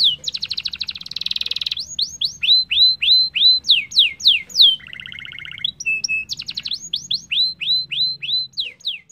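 Domestic canary singing: a string of quick whistled notes that each slide down in pitch, broken by a fast rattling trill about a second in and a lower, buzzier trill near the middle, then more sliding notes.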